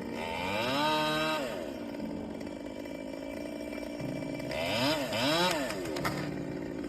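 Holzfforma G111 35.2cc two-stroke top-handle chainsaw revving. It speeds up about half a second in, holds high briefly and drops back to idle, then is revved up and down twice near the end.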